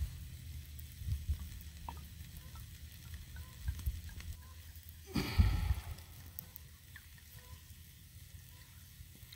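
Food sizzling on a campfire while mead is poured from a bottle into a stemmed glass, with a brief louder rustle about five seconds in.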